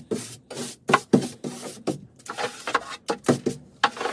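Stiff-bristled hand brush sweeping a painted wooden shelf in quick, uneven back-and-forth strokes, about three a second, brushing off dust and mould.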